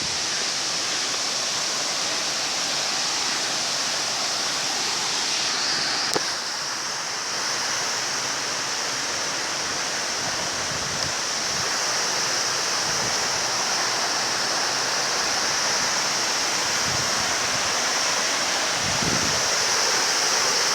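Waterfall: a steady rush of falling water. A brief click about six seconds in.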